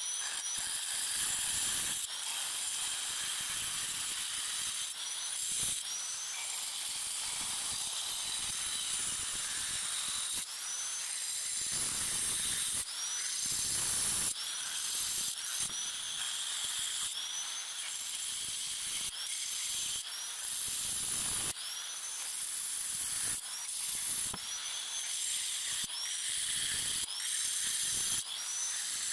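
Angle grinder with a cutting disc slicing through the rim of a glazed ceramic pot: a steady high-pitched whine and grinding hiss. The whine repeatedly sags under load and climbs back up, many times over.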